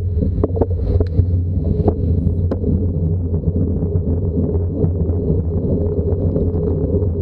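A vehicle's engine running at a steady pitch, with wind buffeting the microphone; a few sharp clicks come in the first three seconds.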